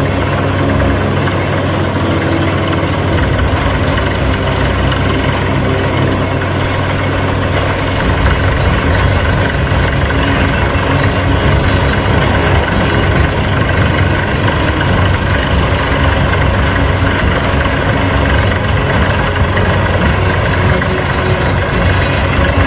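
Truck-mounted borewell drilling rig running under load while drilling, a loud, steady mechanical drone. About eight seconds in it grows slightly louder and deeper.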